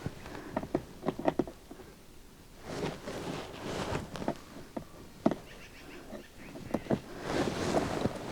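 Scattered sharp plastic clicks and short rustles from hands handling and fitting plastic clips in a car door.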